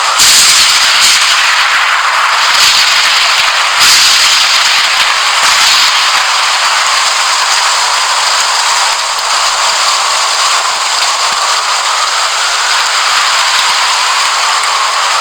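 Heavy rain hissing steadily, with sharp cracks of thunder right at the start and about four seconds in, and a few smaller cracks between.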